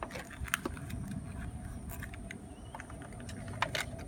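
A handful of light clicks and taps from small plastic dollhouse pieces being handled and set in place, over a steady low rumble.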